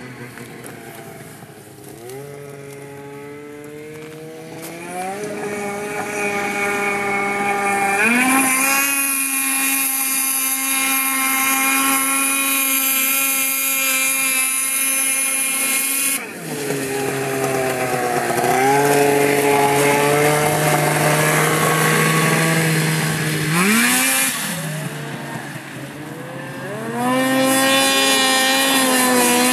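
Snowmobile engine revving hard and running at high speed. Its pitch climbs several times as it speeds up and holds a high steady note, with a sudden break about halfway through before it climbs again.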